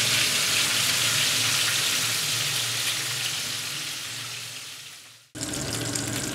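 Pig's trotters frying and sizzling in a pan as they brown with onions and tomatoes. The sizzle fades away about five seconds in, then a quieter steady hiss cuts back in.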